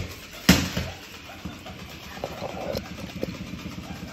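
Two sharp knocks, the louder one about half a second in, then a steady low buzzing rattle with scattered small clicks, from a small motor running.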